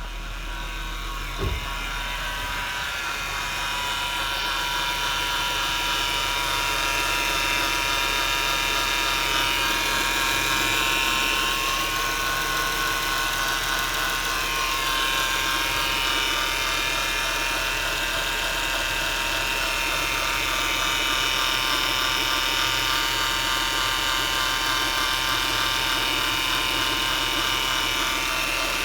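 High-pitched mechanical whine from a 2007 Acura TL, several steady tones together that swell over the first few seconds and then drift slightly up and down, over a busy whirring. A short thump about a second and a half in.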